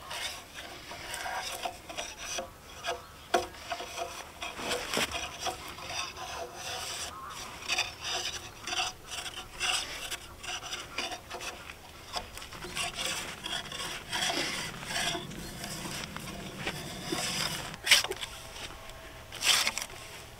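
A debarking tool scraping bark off a robinia log in quick repeated strokes, with one sharper knock a few seconds before the end.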